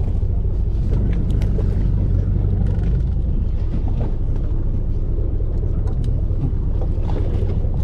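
A fishing boat's engine idling with a steady low rumble, with a few light clicks over it.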